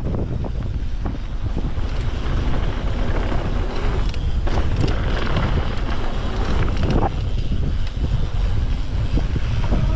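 Wind noise on the microphone over the rumble of a mountain bike riding a dirt trail, with frequent short clicks and clatters from the bike and stones.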